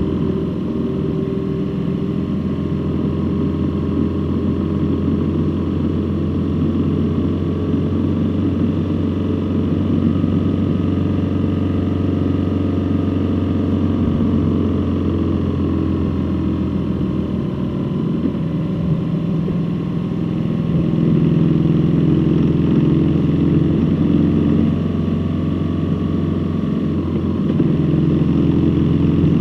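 A motor vehicle's engine running steadily while on the move. Its note shifts about two-thirds of the way through and runs a little louder after that.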